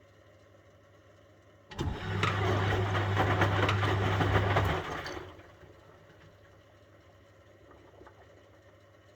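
1971 Constructa Garant 491 washing machine in its wash phase: the drum motor starts about two seconds in and turns the drum for about three seconds with a loud hum and a clatter of tumbling wash, then runs down to a pause with only a faint hum left.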